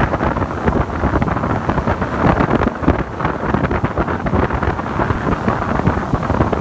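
Wind buffeting the microphone aboard a Yamaha AR210 jet boat under way: a loud, ragged rushing over the boat's running noise on the water.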